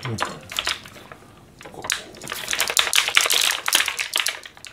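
Eggs tapping against a stainless steel pot as they are set in, then a clear plastic egg pack crackling and clicking as it is handled, a dense run of crackles in the second half.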